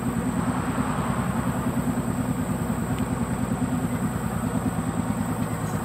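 Boat's outboard motor running steadily at low speed, an even, fast putter.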